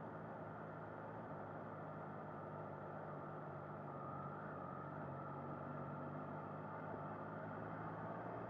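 Triumph Trident 660's inline three-cylinder engine running at low revs as the bike rolls slowly, a steady engine note that grows slightly louder in the second half.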